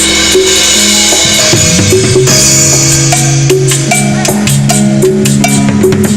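Cumbia music with timbales: a quick run of sharp drum strokes over held keyboard and bass notes.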